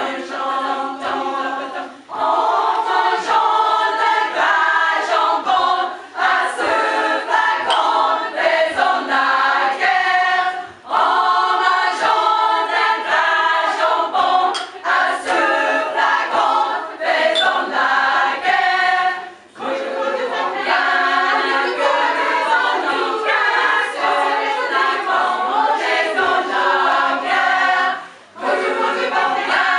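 Women's choir singing a French drinking song in several parts, with short breaks between phrases.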